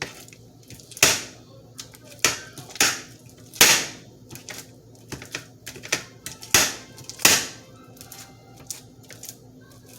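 Sticky clear slime being kneaded and pressed by hand, giving off sharp, irregular clicks and pops, a few loud ones among softer ones. A faint steady hum runs underneath.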